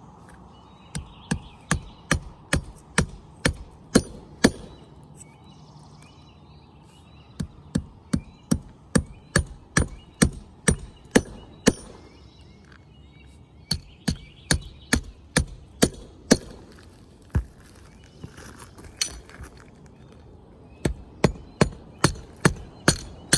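Claw hammer driving 3.5-inch spiral shank nails through a steel roof anchor into the roof truss: several runs of sharp blows, about three a second, with short pauses between nails.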